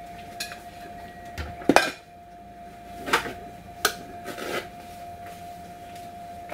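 About half a dozen sharp clinks and knocks of kitchen utensils and dishes, the loudest just before two seconds in, over a steady high-pitched hum.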